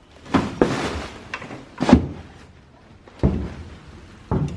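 A few sharp knocks and dull thuds, about four spaced roughly a second apart, with rustling handling noise between them.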